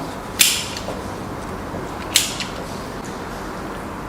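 Two sharp clicks, a little under two seconds apart, from a mortise lock's latch mechanism being worked by hand.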